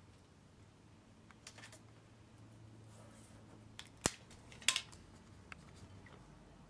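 Faint handling of a paper template and sticky tape: light rustles and ticks, a single sharp snip-like click about four seconds in, and a short crackle just after it.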